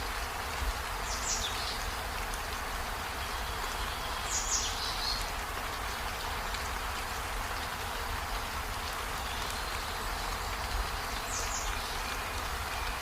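Steady rain falling, an even hiss with a low rumble underneath. Three brief high chirps come through it, about a second in, about four seconds in and near the end.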